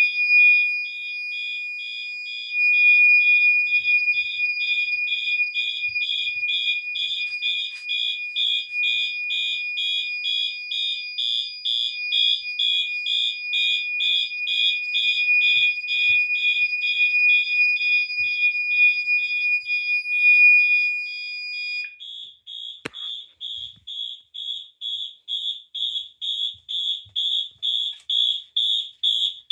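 Wheelock MT multitone fire alarm horn sounding its March Time pattern, a horn tone pulsing about twice a second, together with a second fire alarm sounding a continuous 2400 Hz tone. The steady tone cuts off suddenly about 22 seconds in, followed by a faint click, leaving the pulsing horn alone.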